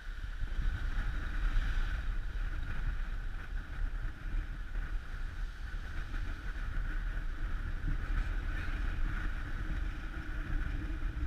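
Wind rumbling on the microphone over a steady hiss.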